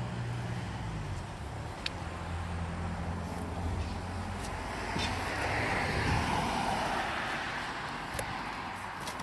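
A car engine running with a steady low hum. About five seconds in, a wash of road noise swells and fades, as from a passing vehicle.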